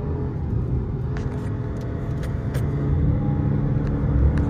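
Dodge Charger SRT 392's 6.4-litre HEMI V8 running in track mode, heard from inside the cabin together with road and tyre noise. It grows a little louder over the last second or so.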